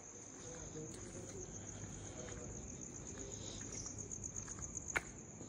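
Crickets chirping in a steady high trill, with a single sharp click about five seconds in.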